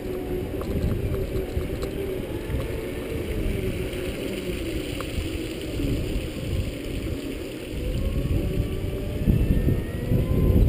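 Segway personal transporter riding along: the motor whine wavers in pitch with speed, over tyre rumble and wind on the microphone. The rumble grows louder near the end.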